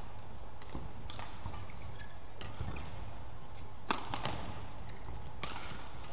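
Badminton rally: several sharp racket-on-shuttlecock hits, the loudest a close pair about four seconds in, over a steady low hall hum.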